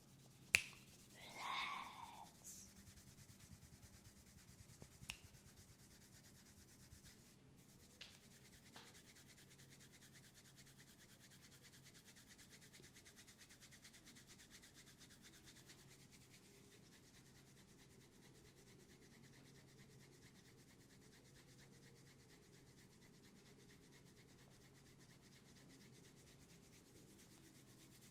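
Hands rubbing oiled skin during a forehead and neck massage: faint, soft, steady rubbing. There is a sharp click about half a second in, a brief squeak-like sound just after it, and a few small clicks before the rubbing settles into an even hush.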